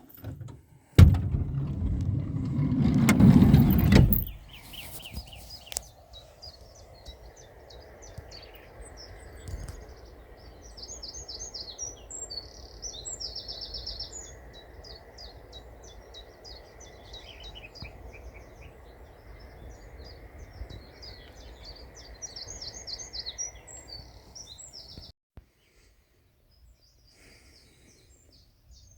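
Small songbirds chirping and trilling in short, rapid high-pitched phrases over a steady low outdoor hum. A loud rushing noise lasts about three seconds near the start. The sound drops out briefly near the end before faint chirps return.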